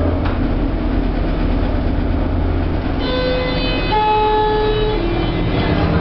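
Steady low machinery drone inside a lift car aboard a car ferry. About halfway in, a three-note chime sounds, each note held about a second and lower than the one before.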